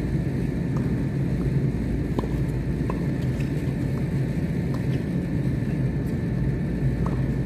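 Steady low outdoor rumble with a thin constant hum above it. Faint, sharp ticks of tennis rackets striking the ball and the ball bouncing on the hard court come now and then from a doubles rally across the court.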